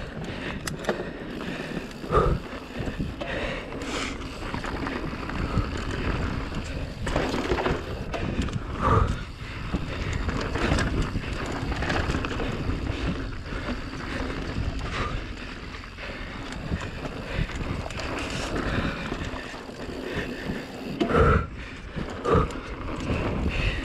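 Giant Reign Advance enduro mountain bike racing down a dirt trail: a steady rumble and hiss of tyres and drivetrain rattle, with wind on the microphone. Sharp knocks from hard hits and landings come about two seconds in, around nine seconds, and twice near the end.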